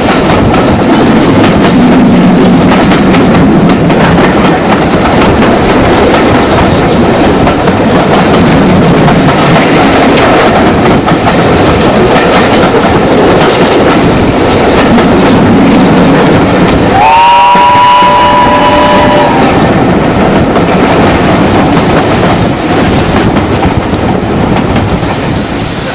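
Loud running noise of a steam-hauled passenger train heard from an open carriage window: rushing air and rail noise with the locomotive working ahead. Around two-thirds of the way through, a steam whistle blows a multi-note chord for about two seconds.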